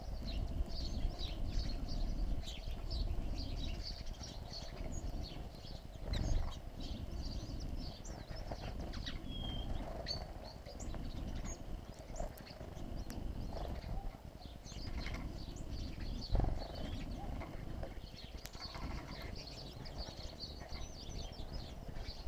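Small birds chirping around a seed feeder: many short, high chirps scattered through, over a steady low background rumble, with a couple of dull thumps.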